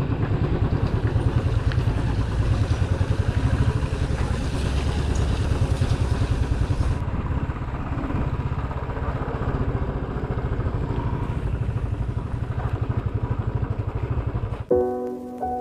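Motorcycle engine running steadily as the bike cruises along a highway. Near the end it cuts off abruptly and music starts.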